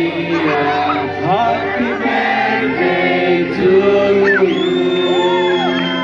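A crowd of children and adults singing together around cakes with lit candles, a birthday song. A high whistle-like tone comes in about two-thirds of the way through and wavers toward the end.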